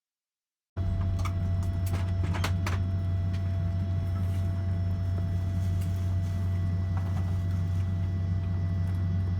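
Steady low hum of a Boeing 767-300ER's cabin ventilation on the ground, starting abruptly about a second in, with a few sharp clicks and knocks in the next two seconds.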